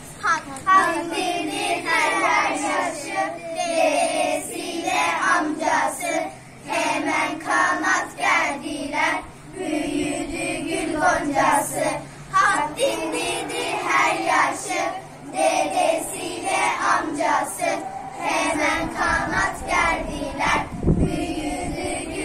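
A group of children singing an ilahi (Turkish Islamic hymn) together in phrases with short breaths between them.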